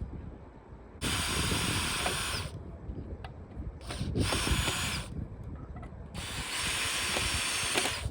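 Cordless power drill driving screws into wood: three runs of one to two seconds each, with a short blip just before the second.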